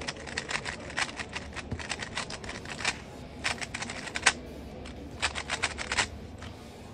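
A new GAN 15 MagLev 3x3 speedcube being turned quickly by hand: its plastic layers clack in rapid flurries of clicks with short pauses between them.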